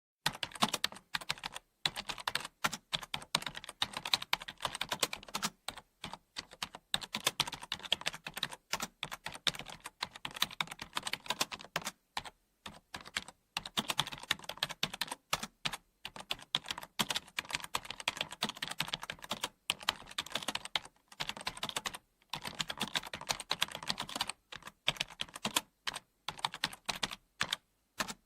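Typing on a computer keyboard: rapid, uneven runs of key clicks broken by short pauses every second or two.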